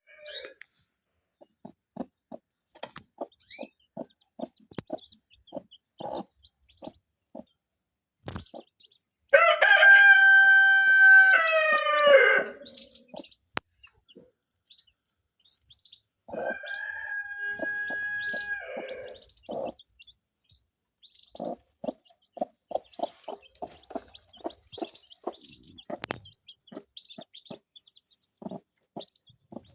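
Chickens clucking in short repeated notes, with a rooster crowing twice: a loud crow about 9 seconds in and a second, softer crow about 16 seconds in.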